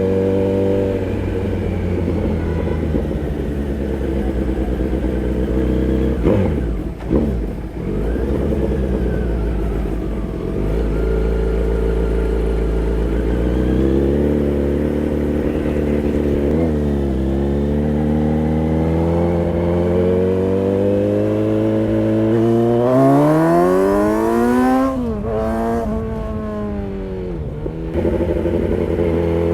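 Kawasaki Z900's inline-four engine running through an aftermarket DTMOTO exhaust. The revs rise and fall several times, with two sharp blips about six to seven seconds in and a long steep climb a little past twenty seconds that drops back sharply.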